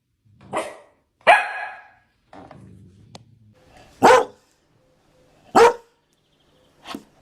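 Dalmatian barking: about six loud single barks spaced a second or more apart, the second one longer and drawn out. A quieter low rumble comes between the second and third barks.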